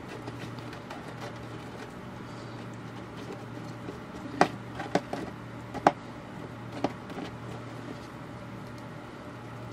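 Handling noise from a boat gauge's plastic housing and metal mounting bracket as the wiring grommet is worked back into place: about five short, sharp clicks and knocks between four and seven seconds in, over a steady low hum.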